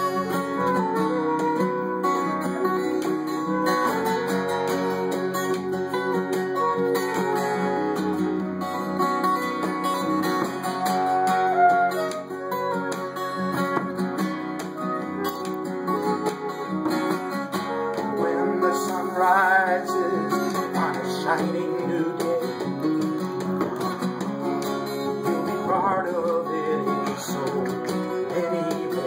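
Live folk instrumental: an acoustic guitar strummed, a frame drum tapped with a beater, and a wind instrument carrying the melody with some sliding and wavering notes.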